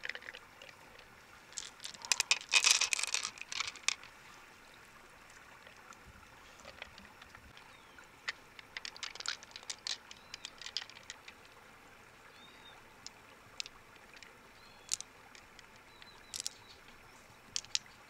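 A short spell of splashing or pouring water about two seconds in, then scattered light clicks and taps.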